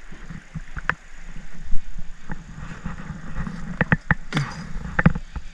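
Sharp knocks and clatters on a jon boat as a hooked pickerel is landed by hand, without a net, thickest about four to five seconds in, over a low steady rumble.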